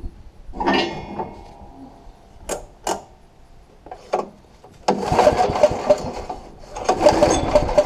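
Briggs & Stratton engine on a wood chipper being pull-started with its recoil starter: a couple of sharp clicks, then two cranking pulls, about five and seven seconds in, each a rapid mechanical chugging lasting about a second.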